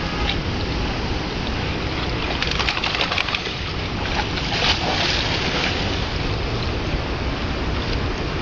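Water splashing over a steady rushing noise, with bursts of splashing about two and a half and four and a half seconds in.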